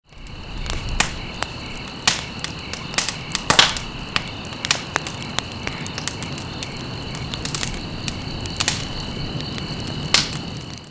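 Steady high insect chirring, one part pulsing evenly, over a low rushing bed, with many irregular sharp taps and crackles scattered through it.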